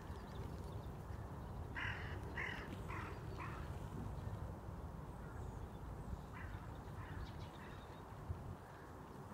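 Distant animal calls: a quick run of four short, harsh calls about two seconds in, then a few fainter ones around six to seven seconds, over a low wind rumble on the microphone.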